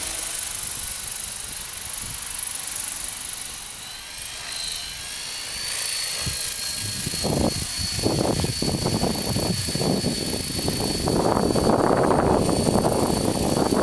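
Radio-controlled Hurricane 500 model helicopter in flight: rotor noise with a steady high whine, growing louder and choppier from about halfway as it comes in low and close.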